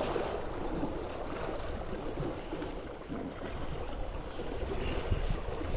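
Wind blowing over the microphone: a steady rushing hiss with irregular low buffeting rumbles.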